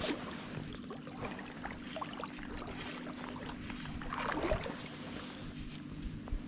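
River water running and lapping, with small splashes and clicks and a louder splashy rustle about four seconds in, over a steady low hum.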